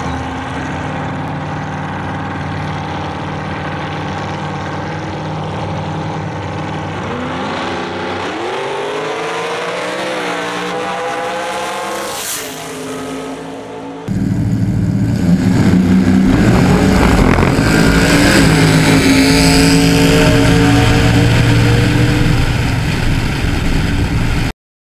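Two drag-race cars hold steady engine noise on the line, then launch and accelerate hard down the strip, their engines climbing in pitch and sweeping past about twelve seconds in. After a cut, a louder engine at full throttle is heard up close from a camera mounted on the car, rising through its gear changes until the sound cuts off abruptly near the end.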